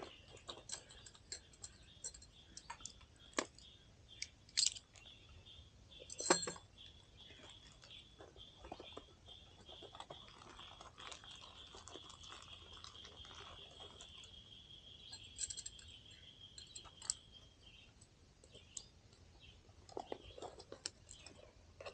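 Crinkling plastic bags and small clicks and knocks of gear being pushed back into a bag pouch, in irregular bursts.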